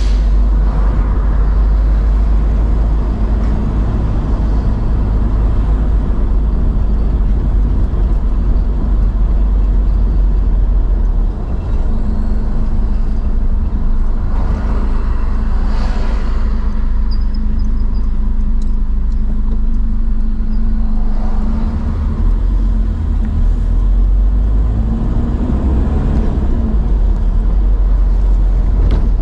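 Car driving along a town street: steady low engine and road rumble, with a steady hum through the middle stretch and a few swells as other vehicles pass.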